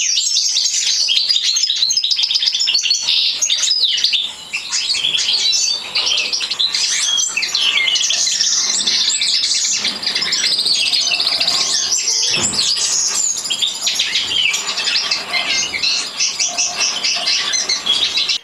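Finches singing: a continuous, fast stream of high twittering chirps and trills, with only brief pauses.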